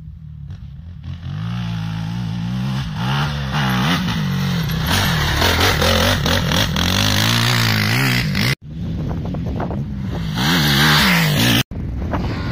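Sport quad (ATV) engine revving hard on a motocross track, its pitch repeatedly rising and falling with throttle and gear changes; faint at first, then loud as it comes close. The sound cuts out sharply twice, briefly each time.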